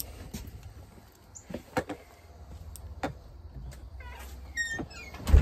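Footsteps and phone-handling rustle while walking, with scattered clicks and knocks, a few short squeaks about four seconds in, and a heavy thump near the end.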